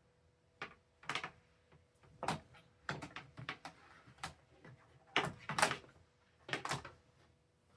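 Irregular knocks, clicks and scrapes from handling the box fan and its parts, about a dozen strokes unevenly spaced, the loudest cluster a little past the middle, over a faint steady hum.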